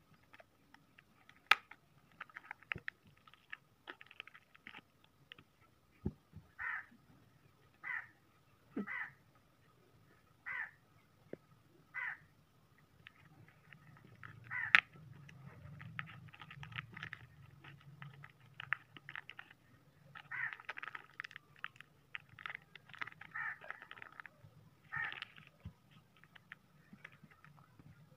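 Small zip-lock plastic bags crinkling and rustling as they are handled and opened. Partway through, a bird calls five times, about once every one and a half seconds.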